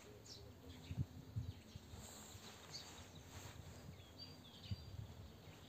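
Faint outdoor ambience: wind rumbling unevenly on the microphone, with a few high bird chirps about four seconds in.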